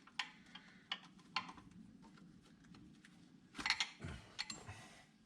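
Hand tools clinking: sharp metal clicks and clanks, a few spaced out and then a quick cluster about three and a half seconds in, as a socket is picked out and handled.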